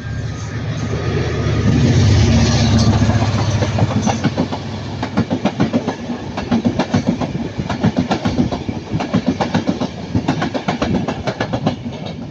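Class 67 diesel locomotive passing under load, its engine loud and working hard for the first few seconds. After that the coaches' wheels click rapidly over the rail joints.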